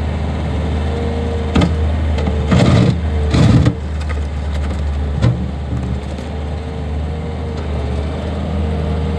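Bobcat T550 skid steer loader's diesel engine running at a steady idle. A few short, louder bursts of noise break in between about one and a half and four seconds in, and once more about five seconds in.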